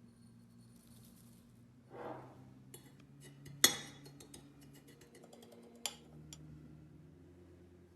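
Dishes and cutlery clinking: a soft brush of movement, then a run of small sharp clinks, the loudest about three and a half seconds in, and one more about six seconds in.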